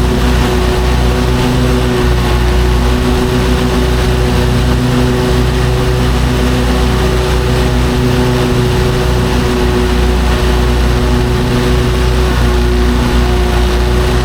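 Lawn mower engine running steadily at a constant speed while mowing.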